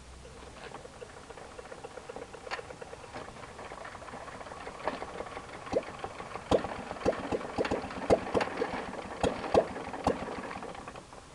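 1930s Guidetti Condor stationary engine running slowly and unevenly as it is started: a faint steady running at first, then irregular sharp firing knocks from about halfway through, before it dies away near the end.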